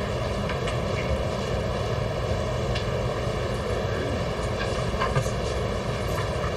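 A steady mechanical drone and hiss, with a few faint short knocks.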